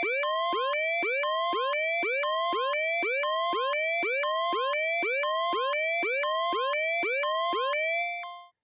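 Electronic siren-style alarm effect: a rising pitch sweep repeating about twice a second, evenly and without let-up, cutting off suddenly near the end.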